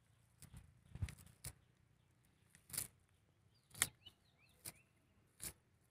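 A cast net being handled and untangled by hand: a series of short rustles and clicks, about eight of them spread irregularly over several seconds.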